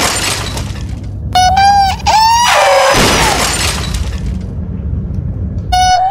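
Glass shattering in a crash sound effect, twice: one crash ends about half a second in and a second runs from about two and a half to four and a half seconds in. It is the runaway bus crashing after its brakes have failed. Short high held tones sound between the crashes and again near the end.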